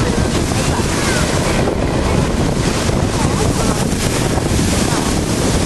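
Wind buffeting the microphone, with the steady noise of surf behind it.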